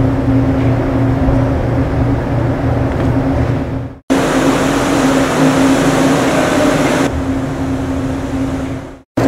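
Steady low mechanical hum with a rumble and hiss, the room noise of an indoor ice rink's machinery. It cuts out briefly about four seconds in, comes back, turns duller about seven seconds in, and fades out near the end.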